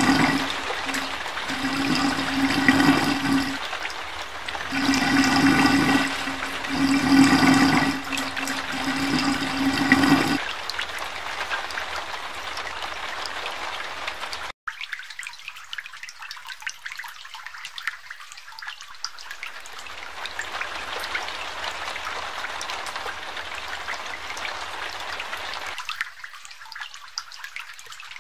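Floodwater gushing and gurgling up out of a street drain, with a low pitched drone pulsing on and off. After about ten seconds it gives way to a quieter, steady rush of water, and near the end water trickles.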